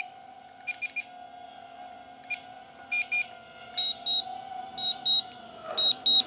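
Short electronic beeps from the DJI Avata 2's flight gear as it is brought in to land. They come in quick pairs and singles, higher-pitched in the first half and slightly lower in the second. Under them runs a faint steady hum that slides down and stops near the end.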